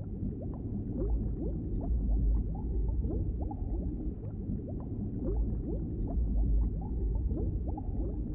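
Underwater sound effect: a muffled low rumble with many small bubbles bubbling and popping.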